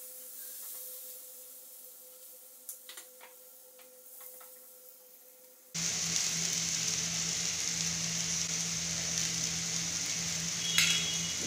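A quiet stretch with a few faint clicks, then about six seconds in a steady sizzling starts: eggless vegetable omelet batter frying in oil in a nonstick pan.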